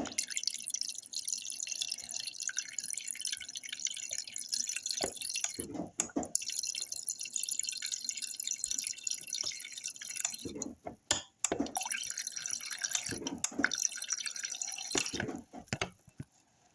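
Tap water running and splashing into a glass bowl, then stopping and starting in shorter spells in the second half, with a few low knocks.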